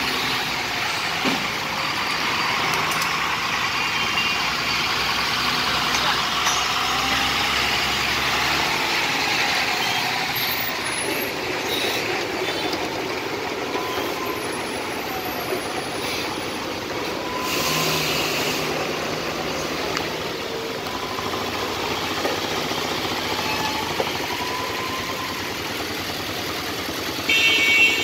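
Heavy road traffic: queued trucks and cars idling and creeping forward, a steady engine rumble. A vehicle horn sounds loudly for about a second near the end.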